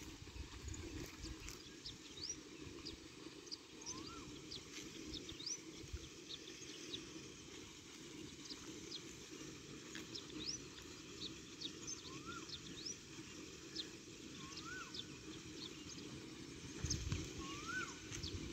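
Birds calling in open farmland: many short high chirps and a rising-and-falling whistle repeated every few seconds, over a faint steady low rumble that swells briefly near the end.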